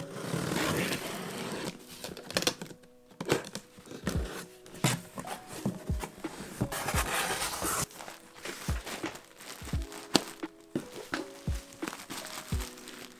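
Cardboard box being unpacked: a long tearing rasp near the start as the packing tape comes away, knocks and thumps of the cardboard flaps, another tearing rasp in the middle, then plastic bags of yarn skeins crinkling as they are lifted out.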